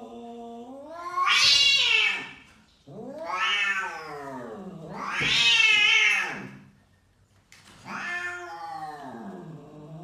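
Domestic cat yowling angrily: a low drawn-out moan that swells into about four long, loud wails, each rising and then falling in pitch, with short breaks between them. It is the warning yowl of a cat being pestered.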